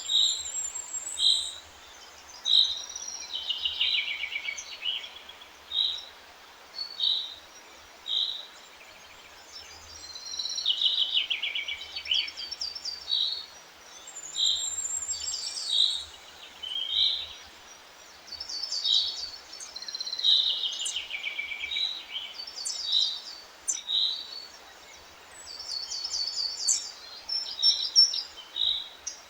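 Songbirds singing: short chirps repeated about once a second, interleaved with longer trilled phrases that fall in pitch, over a faint steady hiss.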